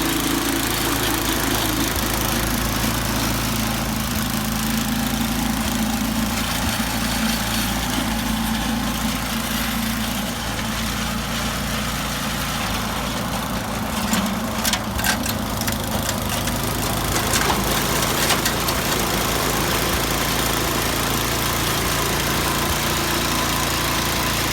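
Columbia snowblower's small four-stroke engine running steadily. Between about 14 and 18 seconds in, a series of clicks and knocks sounds over the engine.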